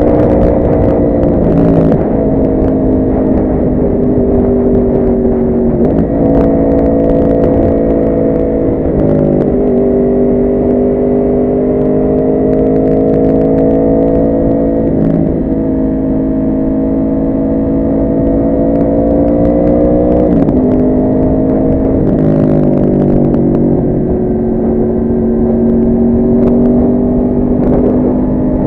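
Yamaha R1 motorcycle engine running under way. Its pitch steps up or down abruptly several times, as at gear changes, then drifts slowly between the steps.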